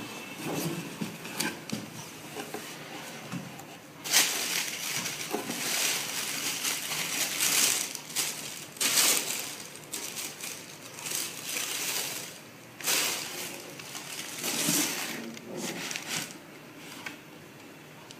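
A few light knocks as a cardboard shoebox is handled, then from about four seconds in the black wrapping paper inside the box is rustled and crumpled in repeated loud bursts, dying away near the end.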